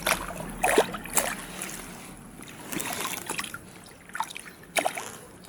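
Water splashing and dribbling in short, irregular bursts as a freshly caught rainbow trout is handled and unhooked in the water.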